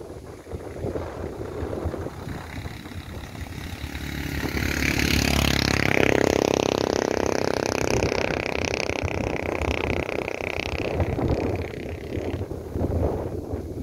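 A passing vehicle's engine grows louder from about four seconds in, holds a steady pitch, and dies away near the end, over wind buffeting the microphone.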